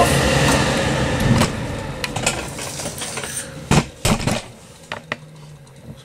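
York gas furnace's fans spinning down after being switched off: a steady hum that fades away over about four seconds. A few knocks and clicks along the way.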